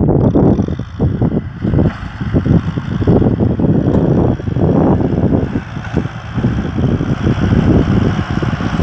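Kubota M6040SU tractor's diesel engine running under load as it pushes soil with its front blade. Gusty wind buffets the microphone, so the low rumble surges unevenly.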